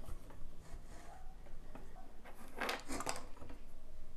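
Hand-cranked steel pasta machine turning, its rollers pressing an inked milk-carton etching plate and paper through as a makeshift printing press. A louder papery rustle comes about two and a half seconds in, as the sheet comes through.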